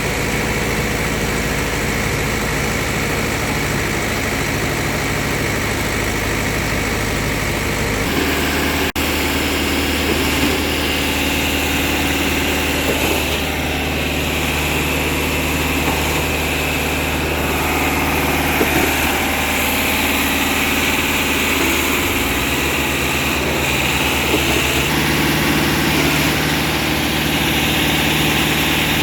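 Concrete mixer's engine running steadily, its speed shifting in steps about eight seconds in and again a little after twenty seconds.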